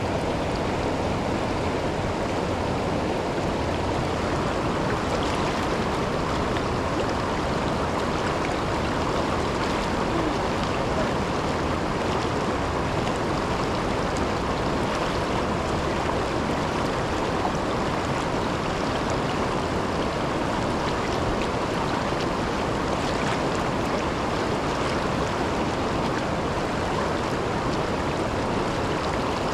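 Waterfall on a river: a steady, even rush of falling and flowing water.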